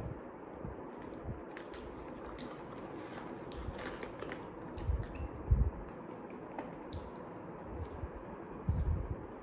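A person eating french fries close to a clip-on microphone: the paper fry box handled with small clicks and crinkles, and chewing. A few louder low thumps come about five seconds in and again near the end.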